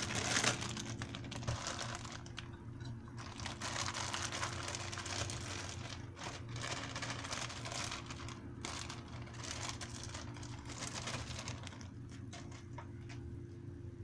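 Rapid, irregular clicking and tapping of kitchen handling as tomatoes are put into a fruit salad, thinning out near the end.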